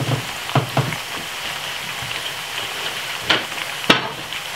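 Ripe plantain slices shallow-frying in oil in a frying pan: a steady sizzle, broken by a few short clicks, the sharpest near the end.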